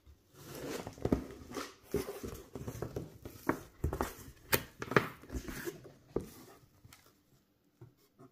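Flaps of a large cardboard TV box being pulled open and handled: rustling and scraping with many sharp knocks, dying down after about six seconds.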